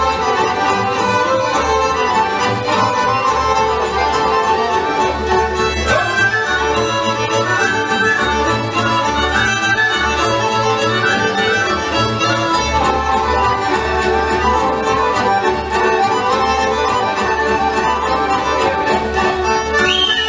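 Serbian folk dance music played on accordion and violin over a pulsing bass line, running without a break.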